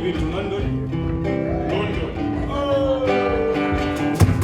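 Acoustic guitar playing live, plucked and strummed; a louder, deeper beat comes in near the end.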